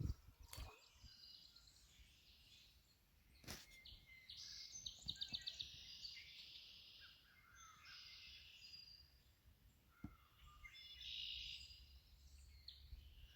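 Faint songbirds singing over quiet outdoor background, one song a quick run of repeated notes about five seconds in and another burst near the end. Two sharp knocks come in the first few seconds.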